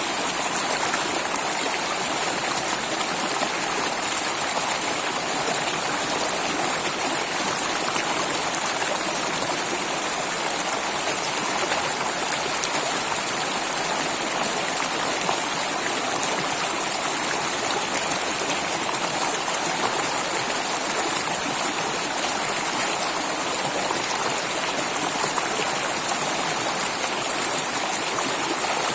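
Flowing water rushing steadily, an even, unbroken hiss with no change in level.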